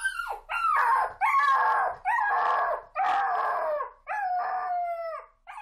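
A dog howling and whining in a string of about eight short cries, each falling in pitch.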